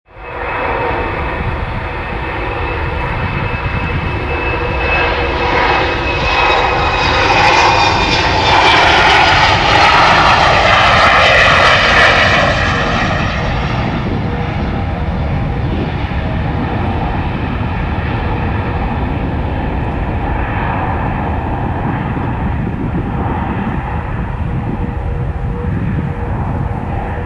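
Embraer 190's twin turbofan jet engines at take-off power as the airliner lifts off and climbs away. The engine noise builds to its loudest about eight to twelve seconds in as the jet passes, then settles to a steadier, duller rumble as it recedes. A whine rides over it and slides down in pitch as the jet goes by.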